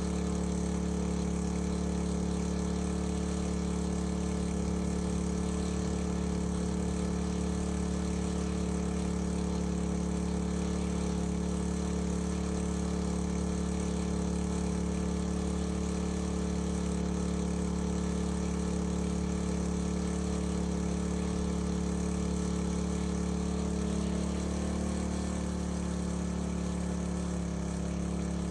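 Engine-driven water pump running steadily under load while pumping water out through a fire hose. Its engine speed dips slightly about 24 seconds in and again near the end.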